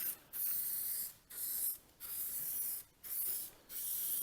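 Aerosol spray paint hissing in a series of short bursts with brief pauses between them, as fresh paint goes onto a newly welded mower deck.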